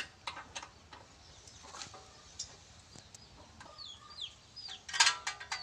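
Scattered metallic clicks of a hand wrench working the exhaust mounting bolts on a sport motorcycle, with a louder cluster of clicks near the end. A few short, high, falling chirps come about four seconds in.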